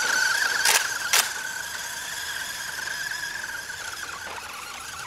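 Electric motor of a fast RC car whining steadily at a high pitch as it drives, gradually fading. Two short clicks about half a second apart come about a second in.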